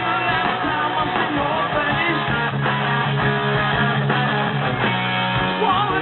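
Rock band playing live, with electric guitar out in front over a steady bass and drums.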